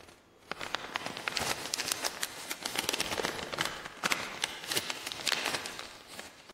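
Paper being folded and unfolded, crinkling and crackling in a dense run of irregular crackles, with a short lull near the start.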